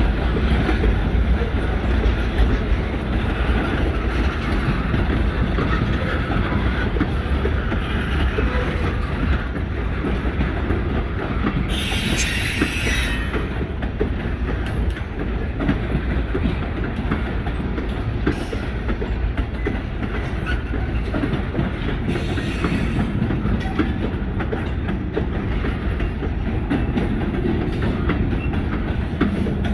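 New England Central freight train in the yard: a steady low rumble with many small clicks and some wheel squeal, and a loud hiss about twelve seconds in, with a softer one about ten seconds later.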